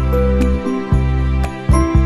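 Background music: a melody of held notes over a deep bass line, with a few light ticks.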